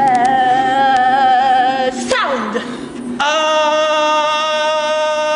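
A singing voice holding long notes: a wavering note, a slide downward about two seconds in, then a steady held note from about three seconds in.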